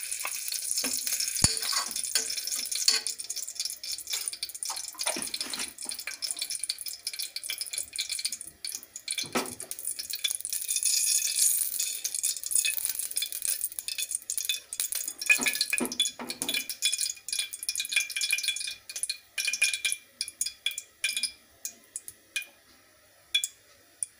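Desi ghee melting and sizzling in a hot pressure cooker, a dense crackling hiss with a few knocks of the pot as it is tilted and swirled. Near the end the sizzle thins to scattered single crackles as the ghee turns fully liquid.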